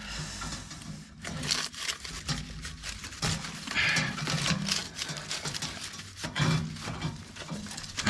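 Scraping and rustling as a ground wire is pushed and fed along under a floor, in irregular bursts, with a few short effortful grunts.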